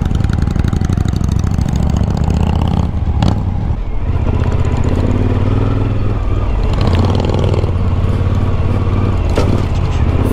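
Suzuki V-Strom motorcycle engine running at low, steady speed while the bike rides over a rough dirt road, heard from on the bike with road noise, and a brief knock about three seconds in.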